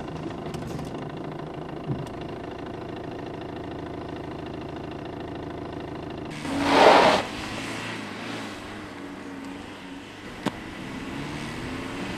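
Car engine running steadily at low revs. About six and a half seconds in there is a loud rushing noise lasting under a second, and about ten and a half seconds in a single sharp click.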